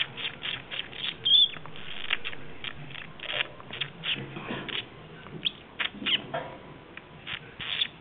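Young budgerigar making short, scratchy chirps and squeaks at irregular intervals, a few a second, with an occasional brief whistled note.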